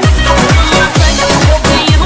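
Electronic dance music from a Bollywood remix mashup: a steady four-on-the-floor kick drum, about two beats a second, under sustained synth chords, with no vocals.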